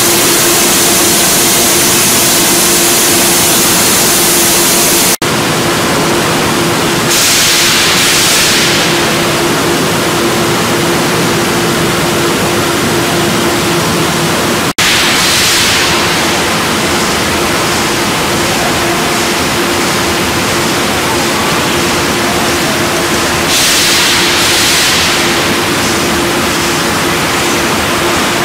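Aluminium coil rolling and slitting machinery running: a loud steady hiss over a constant hum, breaking off and changing abruptly twice.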